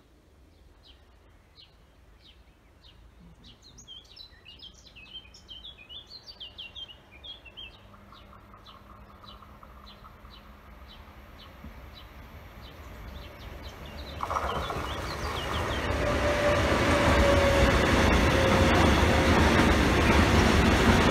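Small birds chirping, one repeating a short call about twice a second, over the faint, growing rumble of an approaching train. About two-thirds in, the electric locomotive reaches the crossing and the loud running noise of a freight train of tank wagons takes over.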